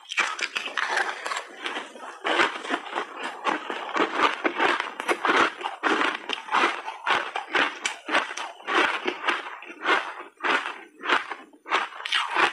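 Close-miked crunching and chewing of a mouthful of refrozen shaved ice: rapid, dense crunches that thin out into separate crunches near the end.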